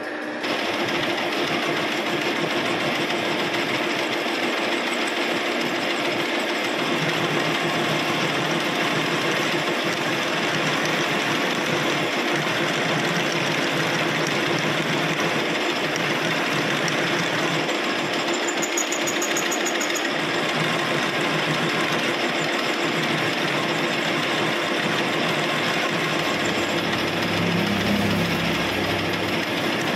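Metal lathe switched on about half a second in, then running steadily with its spindle and chuck spinning, a constant mechanical hum.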